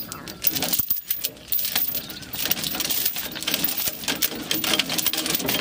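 Heavy steel tow chain clinking and rattling as it is handled and looped around a tractor's hitch: a quick, irregular run of metallic clinks.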